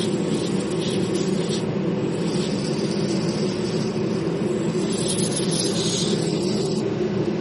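Troy-Bilt snowblower's small gasoline engine running steadily at a constant speed after its carburetor has been cleaned.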